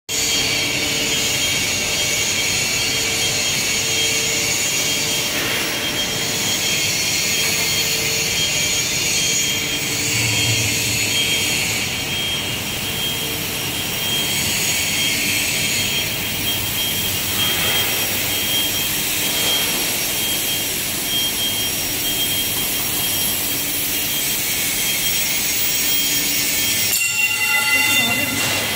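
Steady workshop machinery noise on a trailer factory floor: a high hiss with a thin steady whine running through it, changing abruptly near the end.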